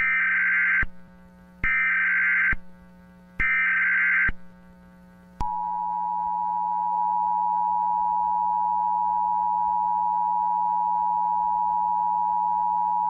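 Emergency Alert System SAME header: three short bursts of screeching data tones, each just under a second, followed about five seconds in by the steady two-tone EAS attention signal. A faint low hum runs underneath.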